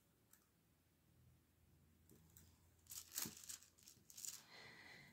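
Near silence for about three seconds, then clear plastic wrapping crinkles in a few short rustles as a hand presses and smooths it flat.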